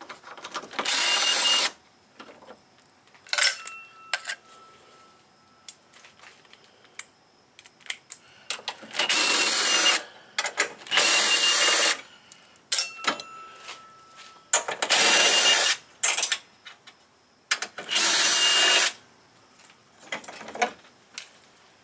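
DeWalt Xtreme 12V cordless screwdriver running in short bursts of about a second each, five or six times, backing out 10 mm bolts from the radiator support brackets, with short clicks and clinks in between.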